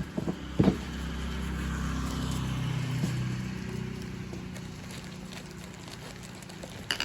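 A few sharp handling clicks, then a motor vehicle's engine hum that swells and fades as it passes.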